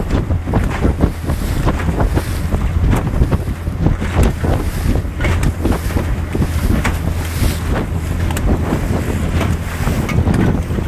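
Wind buffeting the microphone on a Sioux Trucker 4.50 boat running through choppy waves, with the hull slapping and splashing on the chop again and again over a steady low rumble.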